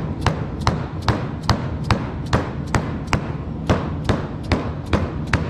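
Repeated sharp knocks at an even pace of about two and a half a second, with one short break about three seconds in, over a steady low hum: a hammer or mallet tapping a part down onto the aerator motor.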